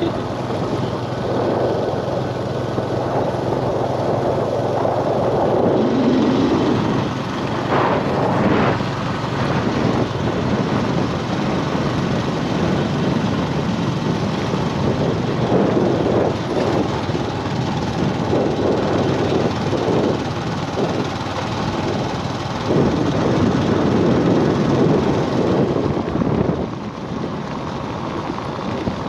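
A vehicle engine running steadily under uneven rushing noise; the engine hum stops near the end.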